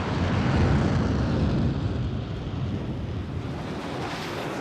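Jet aircraft engine noise: a deep, rushing rumble that is loudest in the first second or two and then eases off a little.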